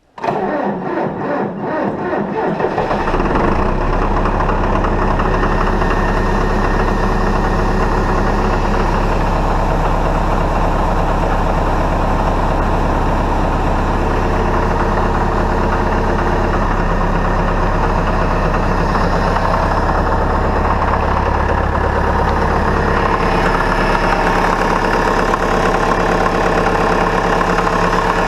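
John Deere 2140 tractor's diesel engine cold-started in extreme cold: a couple of seconds of cranking, then it catches and settles into a steady idle. The engine note shifts about twenty-three seconds in.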